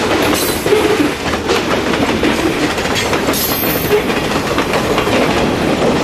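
Freight cars (covered hoppers and boxcars) rolling past at close range, their wheels clicking and clattering over the rail joints as the last cars of the train go by.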